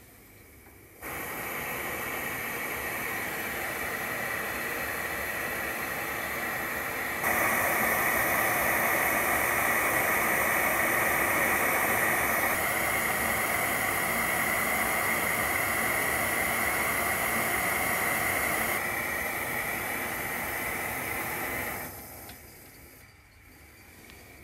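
Stainless-steel kettle at the boil on a portable gas stove, steam hissing steadily from its spout. The hiss starts suddenly about a second in, grows louder around seven seconds in, and dies away near the end.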